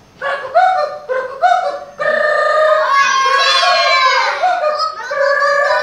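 A group of young children chanting together in high voices. They start with short choppy syllables, then about two seconds in move to held, sung-out notes with a sliding pitch in the middle.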